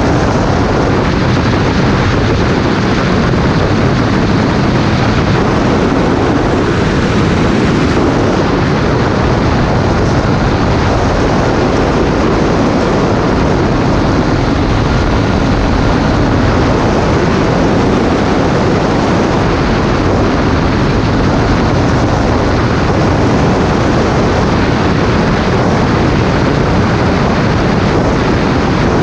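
Flexwing weight-shift microlight's engine and propeller running steadily, mixed with wind buffeting the microphone.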